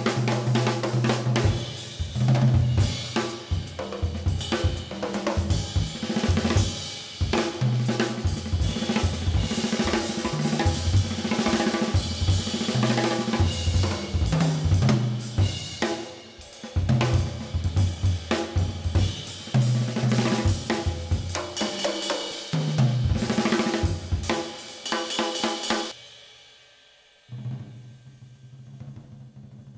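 Jazz drum kit solo: dense fills across the toms, snare and bass drum, with cymbals and hi-hat. It stops abruptly about 26 seconds in, and a softer instrument comes in quietly near the end.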